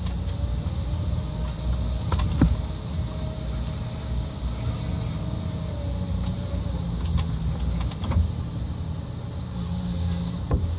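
Forestry harvester's diesel engine running with a steady whine over the low rumble, and a few sharp knocks as the harvesting head works the trunk.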